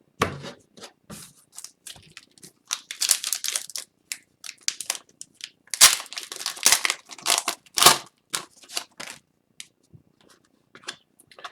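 Hockey card pack wrappers being torn open and crinkled in the hands: an irregular run of crackling and ripping, busiest about three seconds in and again from about six to eight seconds.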